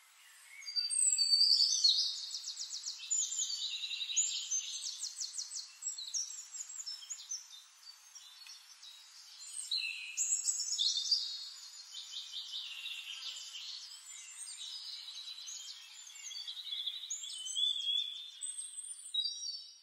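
Songbirds singing: a steady stream of high chirps and fast trills, beginning about a second in.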